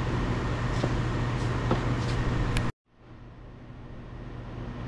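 Steady low machine hum with a few faint clicks; it cuts out abruptly about halfway through and fades back in.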